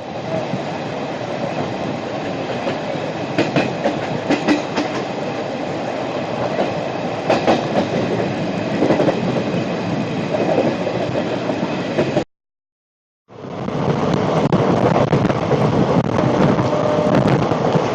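Indian Railways Intercity Express passenger train running, a steady rumble with the wheels clattering over rail joints in short clusters of clicks. The sound cuts out abruptly for about a second partway through, then comes back a little louder.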